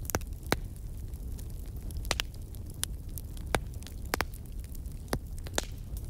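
Wood fire crackling: irregular sharp pops and snaps, about ten, over a steady low rumble.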